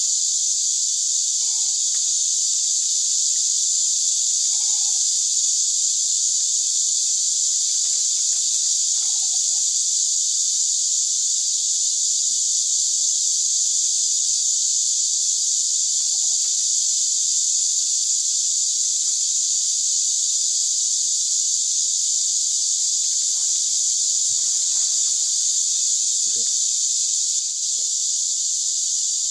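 A dense, steady chorus of insects, a high continuous shrill that does not let up. Beneath it, a few faint clicks of bamboo strips being bent and threaded into a woven basket.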